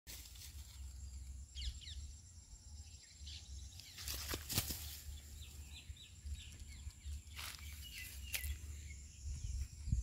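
Faint rustles and brief flaps in dry grass from a rose-ringed parakeet tangled in a net, over a low wind rumble. A few faint, short bird chirps come in three spots.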